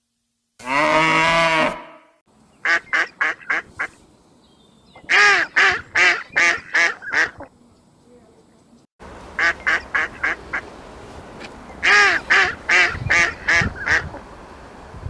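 A cow's single moo about half a second in, then ducks quacking in quick runs of five to seven quacks, with short pauses between the runs.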